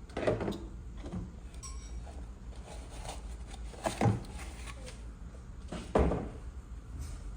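Three short knocks or bumps of household objects being handled, near the start, about four seconds in and louder about six seconds in, over a low steady hum.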